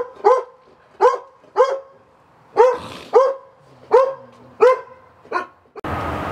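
A dog barking repeatedly, about eight sharp barks spaced roughly half a second to a second apart. Near the end the barking stops and a steady rush of noise cuts in suddenly.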